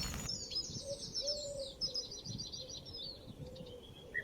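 Small birds chirping and twittering: quick runs of high, short notes through the first three seconds, then scattered single chirps as the sound fades.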